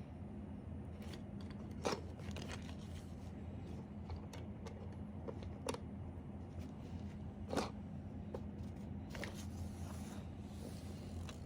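Small plastic toy building bricks being handled and fitted together: scattered light clicks and taps, with two louder knocks about two seconds and seven and a half seconds in, over a steady low hum.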